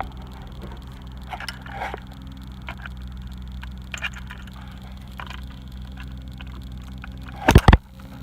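Hand work on a car's steering column: scattered light clicks and handling noises over a steady low hum, then two loud sharp knocks in quick succession near the end.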